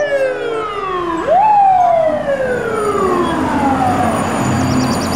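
Fire truck siren winding down in a long falling wail. It rises sharply once about a second in, then falls slowly again.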